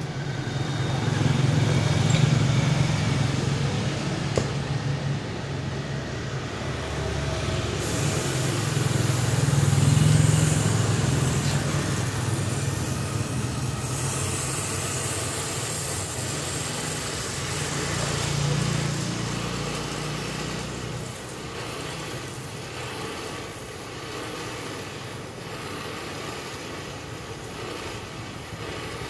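Motor vehicle running, with engine and road noise that swells three times and then settles lower.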